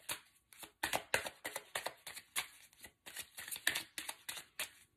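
A deck of oracle cards being shuffled by hand: quick flicks and slaps of card stock in short irregular runs with brief pauses.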